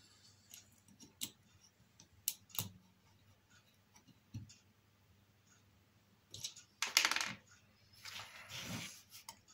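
Faint small clicks of a hex key working a coupling's set screw as it is done up tight. Near the end come two louder scraping rustles of handling.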